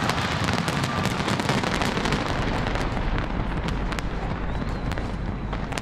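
Fireworks crackling and popping without a break, a dense rattle of many small sharp bursts over a steady rushing noise.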